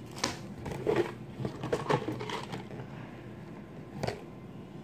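Candy packaging being handled: a wrapper and a small cardboard candy box crinkling and crackling in a few short bursts, the last about four seconds in.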